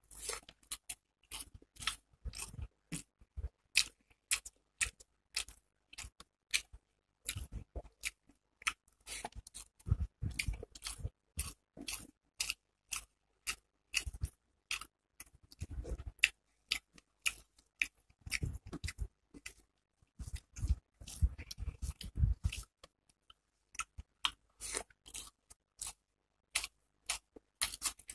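Close-miked chewing of hand-eaten rice and hilsa fish curry: a steady run of wet mouth clicks and smacks, several a second, with heavier spells of chewing now and then.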